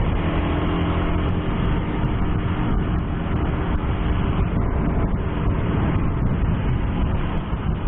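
Motorcycle under way in traffic: its engine running steadily under the rush of wind and road noise. The engine note is plainest in the first few seconds.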